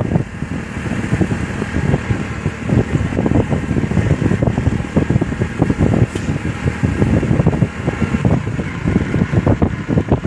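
Loud, gusting wind buffeting the microphone over a vehicle running, as heard from a car keeping pace alongside a fast-moving horse.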